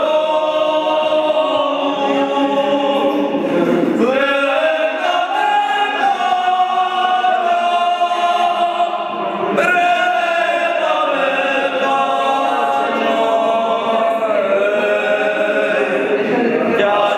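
A group of men singing a folk song together, unaccompanied, in long held notes. New phrases begin about four seconds and about ten seconds in.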